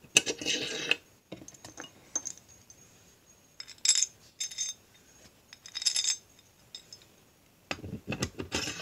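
Metal parts being handled and fitted together: a steel rod, washers and a chain sprocket giving short, scattered clinks and scrapes, with a longer scrape about a second in and a run of clicks near the end.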